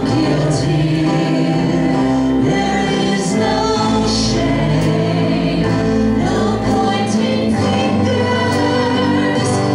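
Live church worship band playing a closing song, with voices singing over guitars and drums and an occasional cymbal hit.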